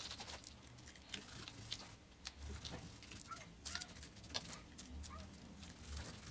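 Polyester-resin-soaked chopped strand mat being pressed and stippled down with gloved fingers and a paintbrush while wetting it out: faint, irregular wet pats, dabs and clicks. A few short high chirps sound in the middle.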